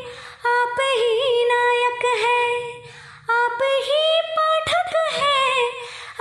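Woman singing a Hindi devotional song to a guru in long, ornamented phrases with bends in pitch, breaking off briefly about half a second in and again near the three-second mark.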